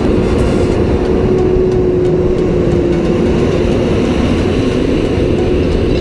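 Large tractor's diesel engine running steadily under load while it pulls a reversible plough through the soil. It is a dense low rumble with a steady hum through it.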